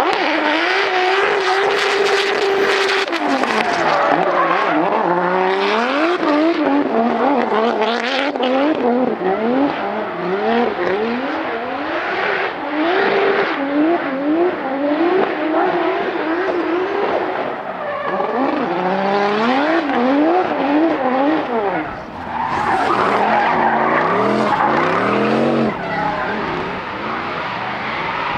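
Drift car engine revving hard, its pitch climbing and dropping again and again with the throttle, over loud tyre squeal from the car sliding. There is a short dip about two thirds of the way through, after which another run of rising and falling revs begins.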